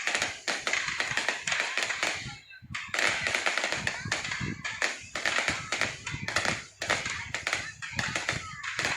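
Fireworks crackling: a dense run of rapid small pops, easing off briefly twice.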